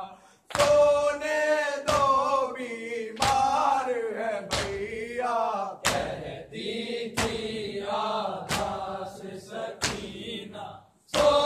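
Men's voices chanting an Urdu noha lament in a loud, reverberant hall, with a sharp slap on a steady beat about every second and a half, typical of chest-beating (matam) in time with the recitation. The chant breaks off briefly just after the start and again near the end between lines.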